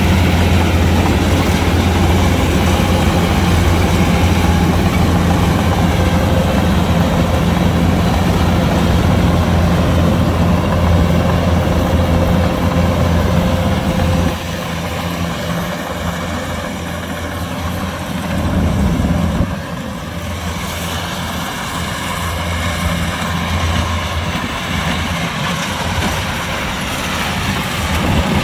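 Kubota DC-105X combine harvester's diesel engine running steadily with a deep hum. About halfway through, the low hum drops away and the machine sounds quieter for the rest of the time.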